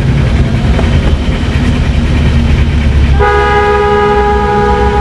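Mini tourist train's Isuzu Panther engine running with a steady low rumble; about three seconds in, a multi-tone horn starts sounding and is held, steady in pitch.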